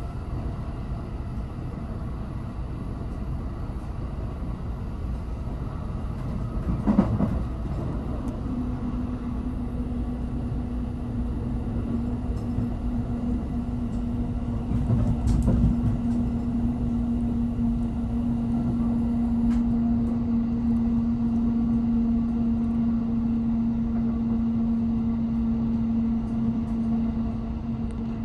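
Running noise heard inside an electric train in motion: a steady rumble of wheels on rail, with a sharp knock about seven seconds in and a steady low hum that sets in just after and holds.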